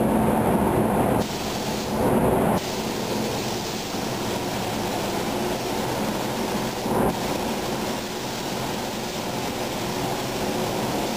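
Steady rushing air in a paint spray booth, from the spray gun and booth ventilation. It is louder and lower for about the first second, swells again briefly about two seconds in, then settles to an even rush.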